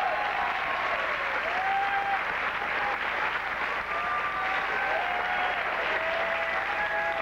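Audience applauding and cheering: steady clapping with voices whooping over it.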